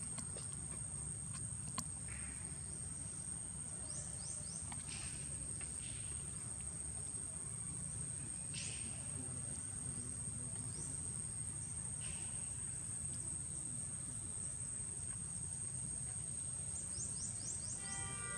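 Steady high-pitched drone of insects, with a few short, faint chirps over it and a low rumble of outdoor background noise.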